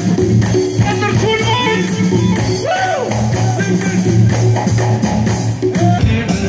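Live band playing music through the stage sound system: keyboard melody over electric guitar and a drum kit keeping a steady beat. The music jumps to another passage near the end.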